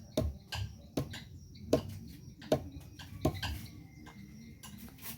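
A series of sharp knocks repeating about every three-quarters of a second, over dull low thuds.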